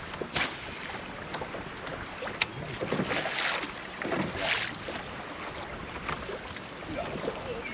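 Small waves lapping against a fishing boat's hull, with wind on the microphone. There are a couple of louder short splashes, about three and four and a half seconds in.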